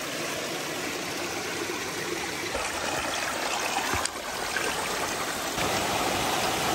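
Mountain stream rushing steadily, with a single sharp click about four seconds in.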